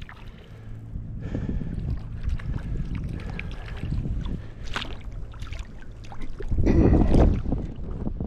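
Wind rumbling on the microphone over moving river water, with scattered small knocks and a louder rushing burst about seven seconds in.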